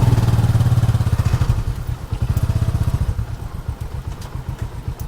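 Motorcycle engine of a trike running with a rapid low throb that gradually gets quieter.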